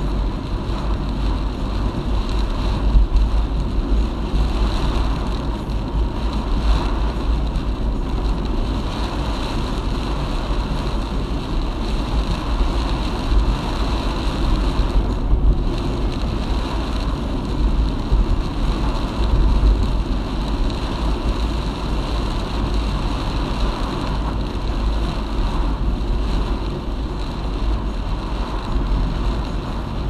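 Steady road and wind noise of a car driving at speed in strong typhoon winds, with a constant deep rumble.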